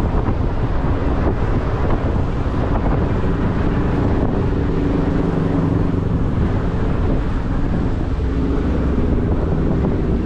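Steady low wind rumble on the microphone, mixed with a low engine hum that is strongest around the middle.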